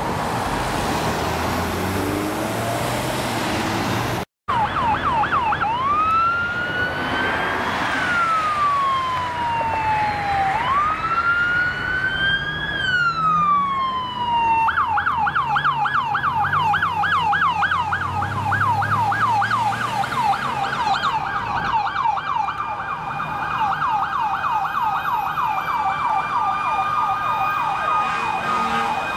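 Road traffic noise, cut off by an edit, then a fire engine's siren: a slow rising and falling wail that switches to a rapid yelp of about four sweeps a second. Near the end the yelp gives way to a steady high tone that falls slightly.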